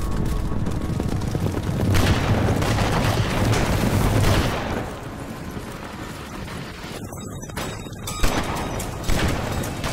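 Horses galloping past at close range, their hoofbeats mixed with a rapid volley of gunshots, loudest over the first four seconds or so. A single sharp crack stands out near the end.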